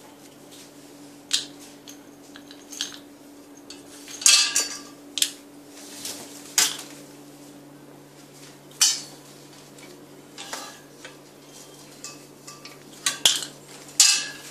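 Scattered metallic clinks and knocks from handling a cradle's metal screws and steel frame tubes during assembly, irregularly spaced, the loudest about four seconds in and again near the end, over a faint steady hum.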